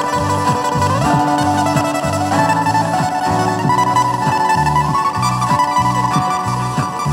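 Steel-string acoustic guitar played fingerstyle: a steady, rhythmic run of low bass notes under a higher melody that slides between notes.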